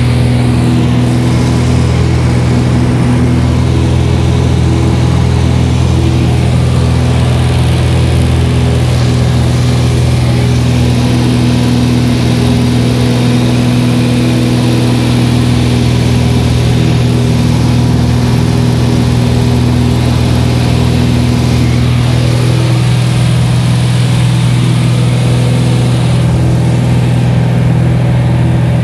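The 1966 Cessna F172G's six-cylinder Continental O-300 engine and propeller droning steadily under power in flight, heard from inside the cabin.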